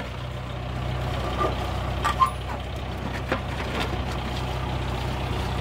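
Old tractor's engine running steadily as it pulls a potato planter, with a few sharp knocks from stones striking the planter's metal plow, the loudest about two seconds in.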